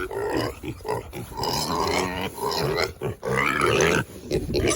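Pigs grunting and squealing, with a higher, arching squeal about three and a half seconds in.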